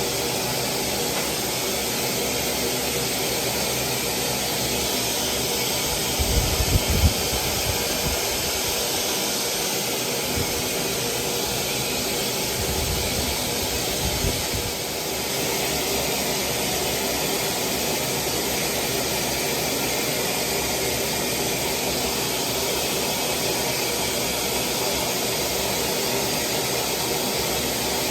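Hair dryer blowing steadily, a constant rushing whoosh of air, with a few low rumbles about six seconds in and again around thirteen seconds in.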